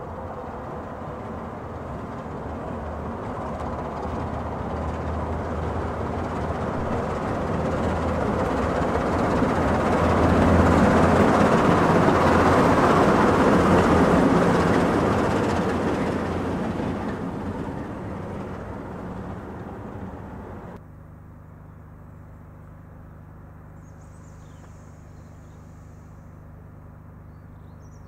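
Peak class diesel locomotive's Sulzer 12LDA28 twin-bank engine working under power, growing louder to a peak, then easing off. About three-quarters of the way through the sound drops suddenly to a steady idling hum, with a faint high chirp near the end.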